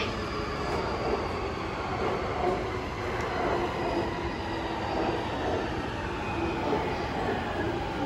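Electric commuter trains giving a steady rumble and hum, with faint wavering tones.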